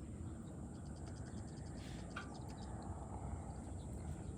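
Outdoor pondside ambience: a steady high insect drone over a low rumble, with a quick run of ticking calls about a second in and a brief bird-like chirp about two seconds in.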